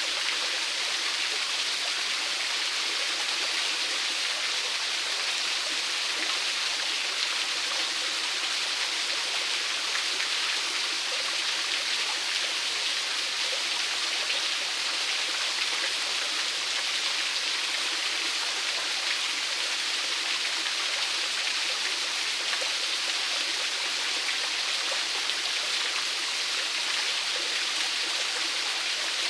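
A small waterfall splashing and running steadily, a constant hiss of falling water.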